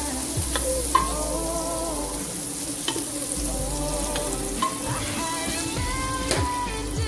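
Butter melting and sizzling in a stainless steel stockpot while a wooden spatula stirs it, with occasional clicks of the spatula against the pot.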